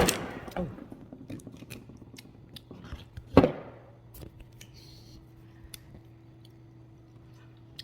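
Scattered light clicks and taps of tableware being handled during a meal, with one louder knock about three and a half seconds in, over a faint steady hum.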